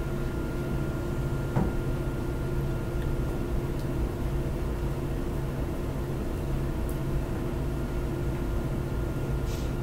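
Steady room tone: a low hum with a few constant tones over an even hiss, and a faint tap about one and a half seconds in.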